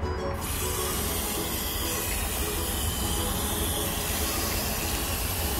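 Garden hose with a shower spray nozzle pouring water onto the potting soil of a freshly repotted moringa tree. It cuts in abruptly just after the start and then gives a steady hiss.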